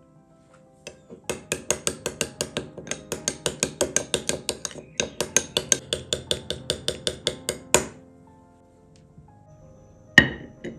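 A metal spoon stirring thick sour-cream sauce in a glass bowl, clinking against the bowl about five times a second, with a short break midway. Near the end a single loud knock as the glass bowl is set down on a ceramic plate. Soft background music underneath.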